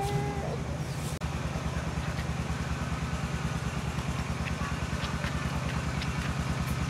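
A small engine running steadily with a rapid, even putter. The sound drops out for an instant about a second in.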